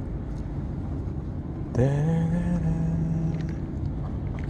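Steady low rumble of wind and sea on the microphone. About two seconds in, a motor's hum rises a little in pitch and then holds steady for about a second and a half.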